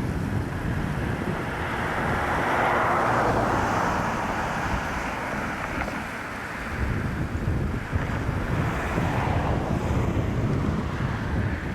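Wind rumbling on the microphone over a steady rushing hiss, swelling a couple of times.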